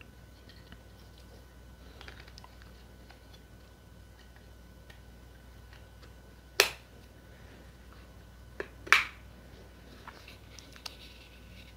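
Battery cover of the Edifier S3000 Pro wireless remote being slid back on and clicking shut after the batteries are fitted. Faint handling rustle, then sharp clicks: one a little past halfway, two close together about two seconds later, and one more at the very end.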